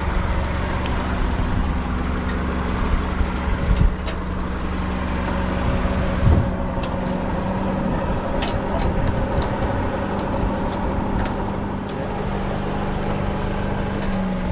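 A four-wheel drive's engine running with a steady low hum, with a couple of short knocks about four and six seconds in.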